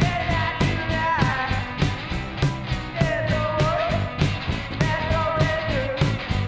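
A live garage rock band playing: distorted electric guitar, electric bass and a drum kit keeping a steady beat with cymbal hits several times a second, and a male singer's voice sliding over the top.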